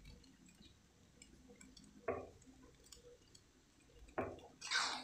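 Faint scattered ticking and crackling from noodles cooking in sauce in a wok, with two short knocks about two and four seconds in and a brief scrape near the end as the metal spatula goes into the wok.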